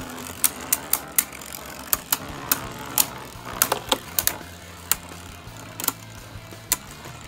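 Two Beyblade Burst tops, a custom 3D-printed Ares and a Tempest Wyvern, spinning in a plastic stadium. They clack sharply and irregularly against each other, about a dozen and a half times, over a steady low whir.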